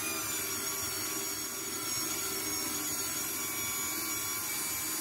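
KitchenAid Artisan stand mixer's motor running steadily, driving its pasta roller attachment as a sheet of pasta dough is rolled through on setting three. A steady motor whine made of several held tones.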